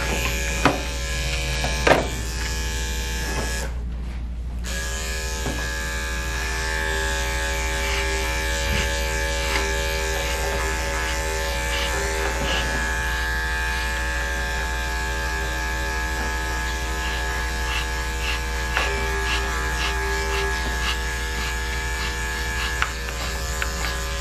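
Corded electric dog grooming clippers running with a steady buzz as they clip a Shih Tzu's coat. A couple of sharp clicks come in the first two seconds, and the buzz drops out briefly about four seconds in.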